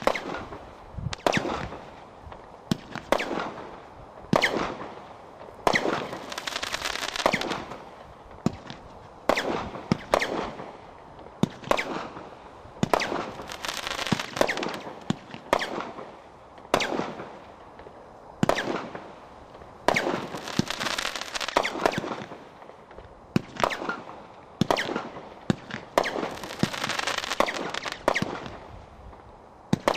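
Single-ignition firework cake firing a continuous barrage: aerial shells bursting with sharp bangs every second or two, several trailing off in one to two seconds of crackle.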